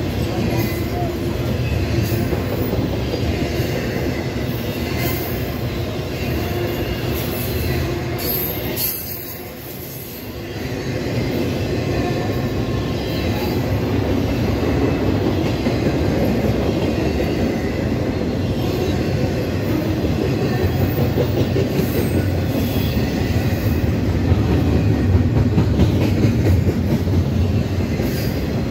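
CSX intermodal freight train's cars rolling past at close range: steady rumble and clatter of steel wheels over the rails, with a brief lull about a third of the way in.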